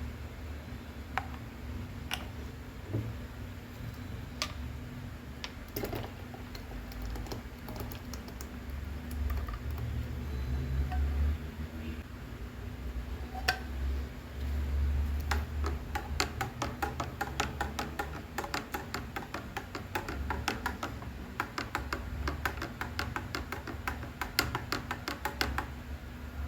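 Light clicks and taps, scattered at first and then coming quickly and fairly regularly over the last ten seconds, over a low steady hum.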